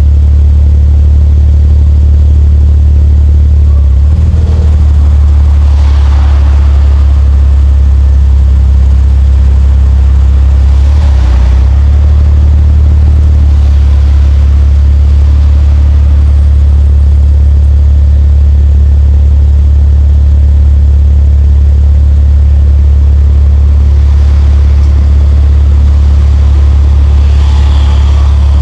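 Nissan Skyline R34 GT-T's turbocharged straight-six running steadily with a loud, low drone, its note shifting slightly twice. Brief noises of passing traffic come and go over it, one near the end.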